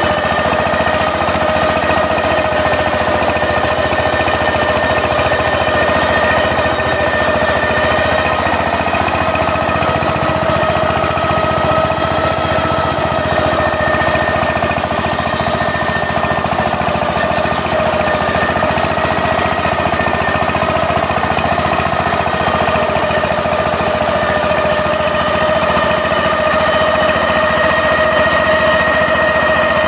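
Power tiller's single-cylinder diesel engine running steadily while the tiller works the soil.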